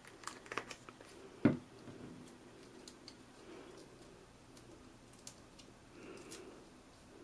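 Faint handling of cardstock and foam adhesive squares on a tabletop: scattered small clicks and taps as the pieces are pressed down and moved, with one louder tap about a second and a half in.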